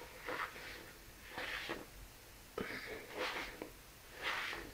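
A hand rubbing and pressing a crumbly flour-and-fat mixture against the side of a plastic mixing bowl with the fingertips, making four short scraping rustles about a second apart, with a couple of light knocks on the bowl near the middle. The flour is being worked in without kneading.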